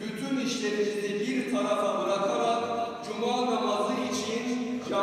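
A single unaccompanied voice chanting Quran recitation in long, held, ornamented notes. It steps up in pitch about a second and a half in and breaks briefly near three seconds.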